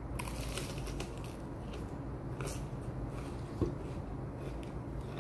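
Crunchy bites into raw bitter melon, then chewing, with crisp crackles in the first second and again about two and a half seconds in. A short low knock comes a little past halfway, over a steady low hum.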